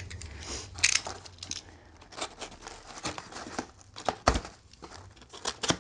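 Paper and tape packaging being pulled at and torn open, crinkling in short irregular bursts, with a sharp thump about four seconds in.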